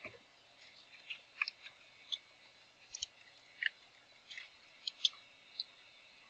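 Computer keyboard keys clicking as a password is typed: about a dozen light, separate keystrokes at an uneven pace.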